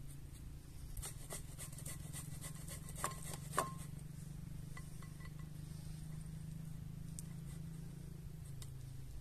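A metal utensil clinking against a bowl while mashing boiled potatoes: a run of light taps, then two ringing clinks about half a second apart, and a few faint taps later, over a steady low hum.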